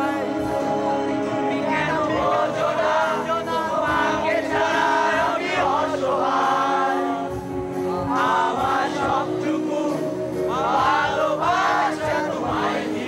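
A group of young male voices singing together in phrases over steady held instrumental chords.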